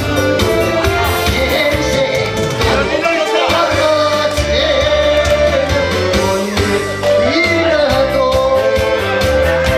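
Loud music with a singing voice, played for dancing.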